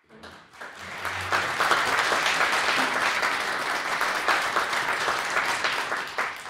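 Audience applauding, swelling up over the first second and fading away near the end.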